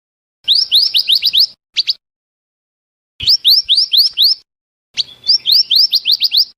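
Recorded lure call of the mantenan (merapi api) bird: three bursts of quick, rising high-pitched chirps, about eight notes a second. The first starts about half a second in, the others about three and five seconds in, with silence between.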